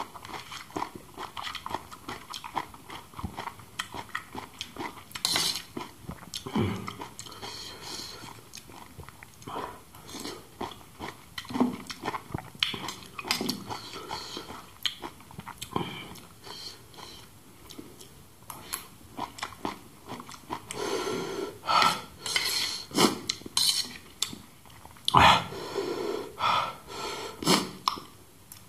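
Close-miked eating: a metal spoon scraping and clinking against a banana leaf and a steel plate, mixed with wet chewing, in many short irregular clicks that come thicker and louder over the last third.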